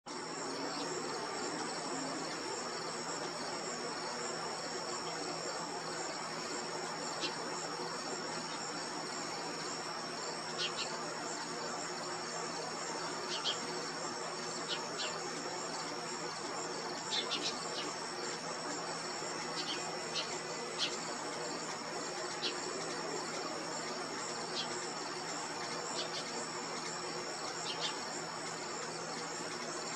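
Steady, high-pitched trilling of insects, likely crickets. Short high chips sound every few seconds, often in pairs.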